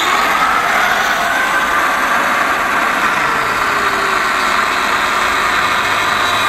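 Angle grinder running at full speed, its disc cutting tread grooves into a bald truck tyre's rubber, a steady loud whine that wavers slightly as the disc bears into the tread.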